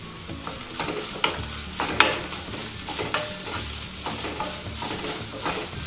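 Chopped onion, garlic and green chillies sizzling in hot oil while a wooden spatula stirs and scrapes them around the pan, with a few sharp taps of the spatula, the clearest about two seconds in.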